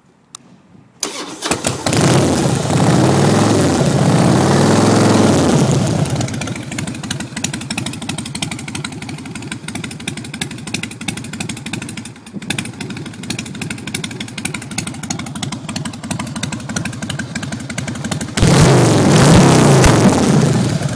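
A 2004 Harley-Davidson Night Train's V-twin, breathing through Hooker headers, is started: a click, a brief crank, then it catches about a second and a half in. It runs fast and loud for about four seconds, settles into a lumpy idle, and is revved again near the end.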